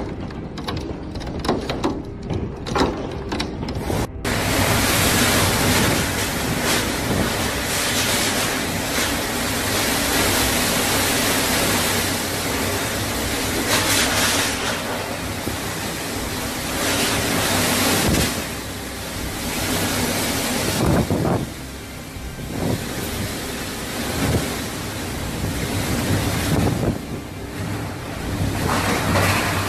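Hailstones pelting a wooden dock, railing and lake surface in a rapid crackle of small impacts. About four seconds in, this gives way to a violent storm wind buffeting the microphone, rising and falling in gusts.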